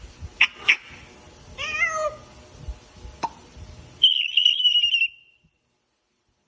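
African grey parrot vocalising: a few sharp clicks, a short wavering call, another click, then about four seconds in a loud, high, wavering whistle lasting about a second.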